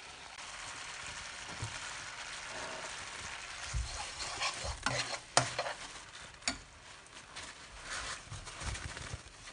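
Sugar syrup bubbling and sizzling in a nonstick pan, boiled down to a sticky stage, as fried boondi is tipped in and stirred with a steel spoon. The spoon knocks and scrapes against the pan several times over the steady hiss.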